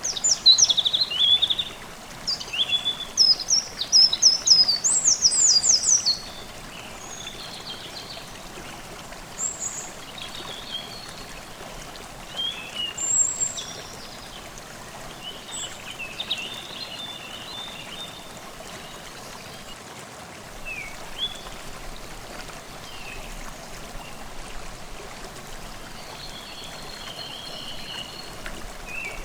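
Forest stream babbling steadily while songbirds sing over it. A run of quick, high song phrases in the first six seconds is the loudest part, followed by scattered chirps and short calls.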